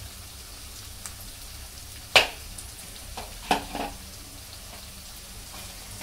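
Chopped carrot and other vegetables sizzling steadily in hot oil in a heavy kadhai. There is a sharp knock about two seconds in and a couple of smaller clatters around three and a half seconds.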